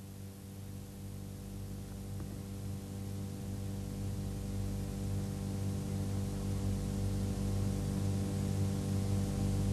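Steady electrical mains hum, a low buzz with a row of overtones, gradually growing louder.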